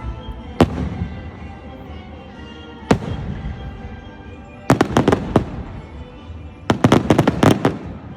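Aerial fireworks bursting: single booms about half a second and three seconds in, then two quick volleys of several sharp reports, one near the middle and one near the end.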